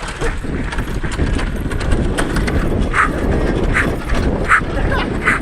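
Rumbling, rattling road noise from a lawn mower being pushed along the road by a vehicle, with short high-pitched squeaks or yelps about three, four and four and a half seconds in.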